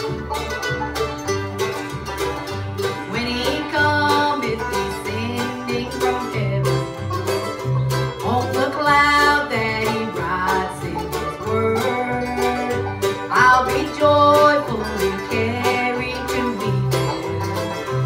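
Acoustic bluegrass band playing: picked strings over the steady alternating two-beat notes of an upright bass, with singing.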